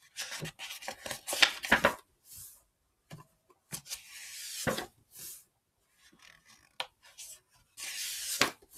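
Pages of a book being turned one after another: paper rustling and sliding in several bursts, with a few light taps and clicks as the pages are handled.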